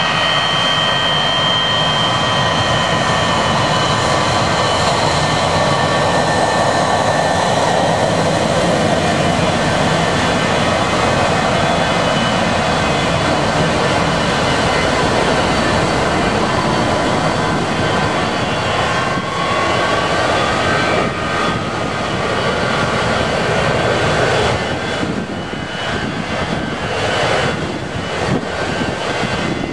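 Pratt & Whitney JT8D turbofans of a Boeing 727 freighter running close by, a steady high whine over a dense rumble. Partway through, a short rising tone comes in, and near the end the sound turns gusty and uneven as the jet moves off.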